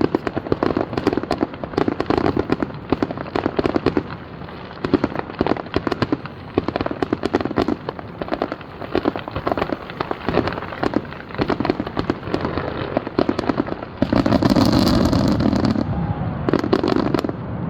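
Fireworks grand finale: a rapid, continuous barrage of bangs and crackles, many reports a second, swelling into a denser, louder stretch about fourteen seconds in.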